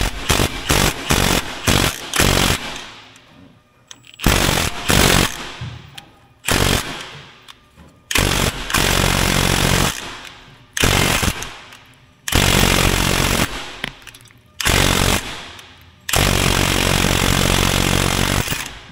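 Cordless impact wrench hammering in repeated bursts, about eight, some a second or two long, each trailing off, on a seized, fully threaded bolt with a nut welded onto it to break it loose.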